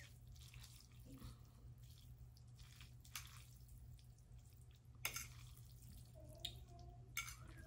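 Faint wet sounds of sauced noodles being mixed and lifted with a fork on a plate, with a few light clicks about three, five and seven seconds in, over a low steady hum.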